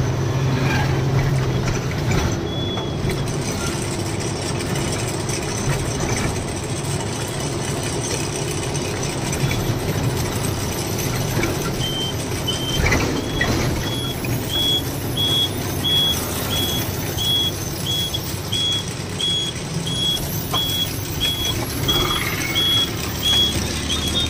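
Lorry engine running at low speed. From about halfway, a reversing alarm beeps steadily, about one and a half beeps a second, with a short sharp noise soon after it starts.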